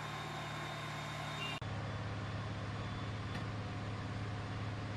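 Armoured military vehicle's engine running steadily, with a low, even hum; the engine note shifts slightly about a second and a half in.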